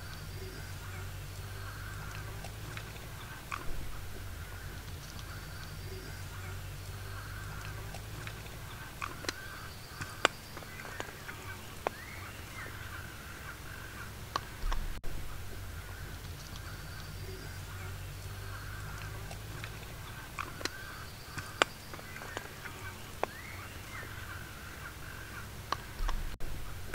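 Woodland ambience: birds call in the background over a steady low hum, with scattered sharp clicks and crackles throughout and a few louder pops.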